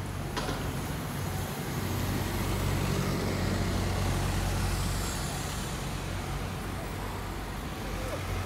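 City street traffic: engines running with a steady low hum that swells about three to five seconds in as a London black taxi drives past close by.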